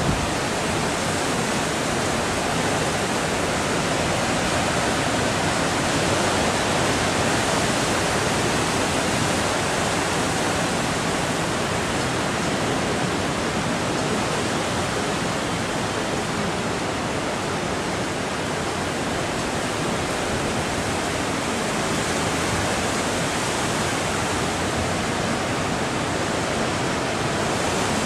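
Steady rushing noise of a violent coastal storm, with wind, rain and surf blending into an even hiss that holds its level and has no distinct gusts or wave crashes.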